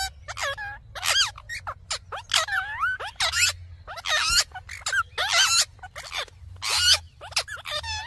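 Ringneck parakeets chattering: a quick run of short, squeaky calls that bend up and down in pitch, one or two a second. A faint low hum runs underneath.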